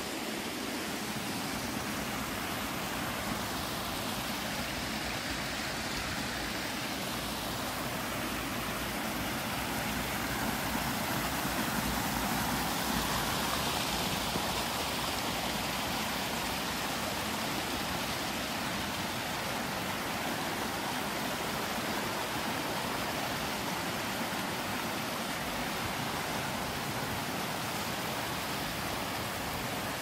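Mountain water rushing steadily, a continuous even hiss, swelling a little about halfway through.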